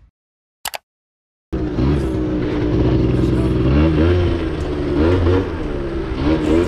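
A short click in about a second and a half of silence, then a Suzuki LT80 quad's small two-stroke engine running and revving up and down several times.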